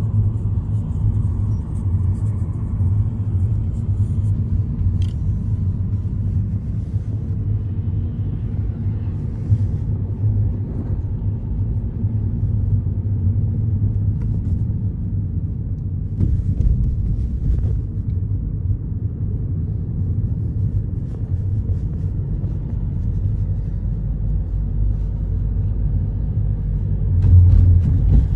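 Steady low rumble of a car's engine and tyres, heard from inside the cabin while driving. A brief louder swell comes near the end.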